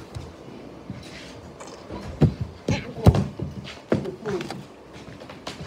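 Several sharp knocks and thumps, bunched together and loudest about three seconds in, from a person and a dog scuffling on the floor close to the phone.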